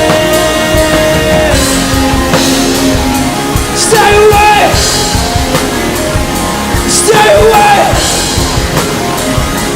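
Rock music with a steady drum beat under sustained held tones, and two short bending melodic phrases, about four and seven seconds in.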